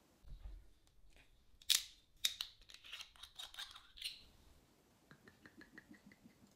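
A drink bottle being opened, with sharp clicks and crackling, then liquid poured from it in quick, evenly spaced glugs near the end.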